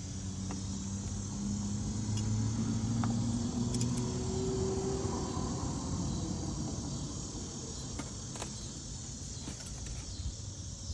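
Cicadas droning steadily in a high, even buzz. Under them a low engine hum swells over the first few seconds and fades out by the middle, like a vehicle driving past, with a few light clicks of items being set down.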